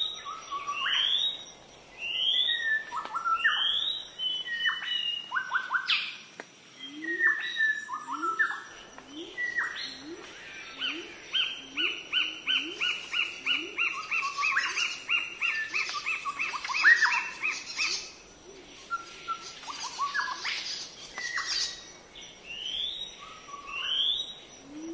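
Birds chirping: a short rising whistled note repeated about every 0.7 seconds, with runs of quick chattering notes in the middle, over a thin steady high tone.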